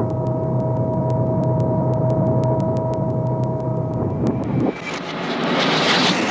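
Cartoon sound effects played in reverse. A steady electronic engine-like hum with a high held whine cuts off about four and a half seconds in, followed by a swelling whoosh.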